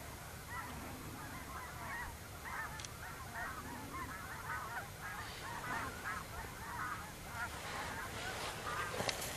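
A flock of geese honking, many short calls overlapping, thinning out near the end.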